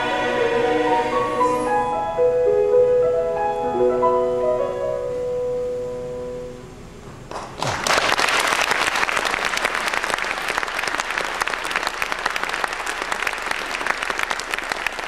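A mixed choir with piano ends a choral anthem, the last notes fading out over about seven seconds. Then audience applause breaks out and keeps going.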